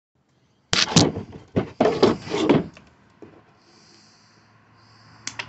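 Handling clatter: a quick run of loud, sharp knocks and bumps from hard objects being moved and set down, lasting about two seconds, then a faint low hum and a couple of clicks near the end.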